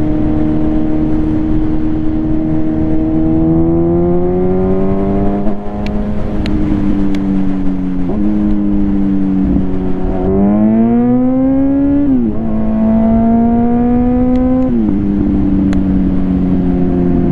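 2021 Kawasaki Z900 inline-four with an Akrapovič full-system exhaust, accelerating through the gears while being ridden. The engine note climbs and then drops sharply at each gear change, several times over.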